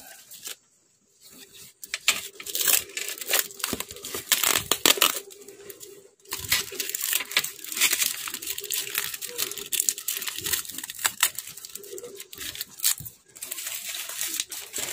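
Thin plastic wrapping being peeled off a plastic tub and handled, crinkling and crackling in irregular bursts, with a short quiet gap about a second in.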